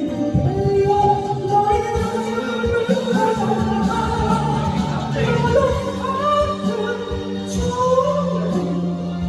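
Music with a singing voice: a sung melody with long held notes over a steady instrumental backing.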